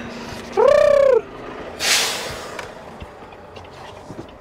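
A man's drawn-out vocal call, rising then falling in pitch, about half a second in, followed by a brief hiss-like rush of noise around two seconds in.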